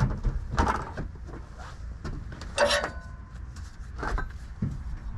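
Scattered knocks and clanks of metal and wood as a heavy log is worked down on a sawmill bed, one clank about two and a half seconds in ringing briefly like struck steel, over a steady low rumble.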